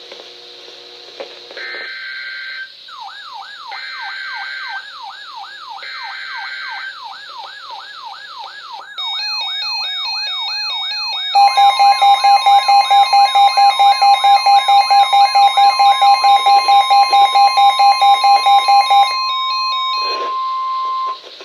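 Weather radio alert sequence. Three short buzzing data bursts, the encoded SAME alert header, are overlaid by a weather alert receiver's warbling siren. Then comes loud rapid beeping over the steady 1050 Hz warning alarm tone, which sounds on alone for a moment before cutting off.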